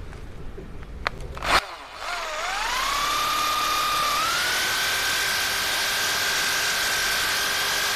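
Bosch GSB 16 RE corded impact drill with a spade bit, switched on about two seconds in. Its whine rises as it spins up, steps up once more, then holds steady at full speed against the tree trunk. The spade bit is not cutting into the wood, perhaps because it is no longer sharp.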